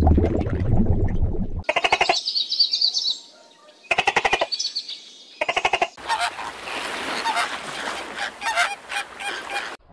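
Birds honking: a few short, pulsed honks with high chirps between them, then from about six seconds in a flamingo flock's dense clamour of overlapping honks, after a low noisy sound in the first second and a half.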